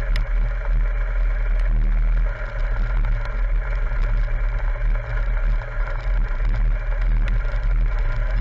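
BMW R 1200 GS boxer-twin motorcycle engine running steadily under way, heard from on the bike, with a few faint ticks.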